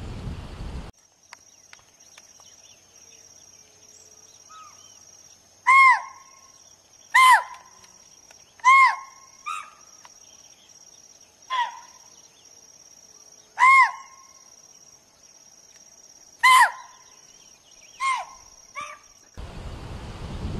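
Axis deer (chital) giving short, sharp alarm calls, about nine of them at irregular intervals of one to three seconds, each a loud high bark that arches in pitch. A steady, high, pulsing insect trill runs underneath.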